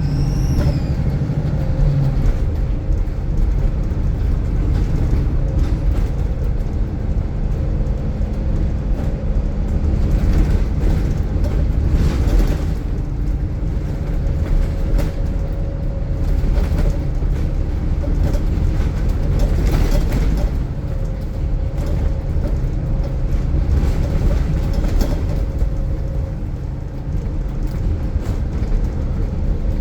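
Diesel bus engine running hard under load with a steady low rumble, over which a thin steady whine, the turbo whistle, is held for most of the time.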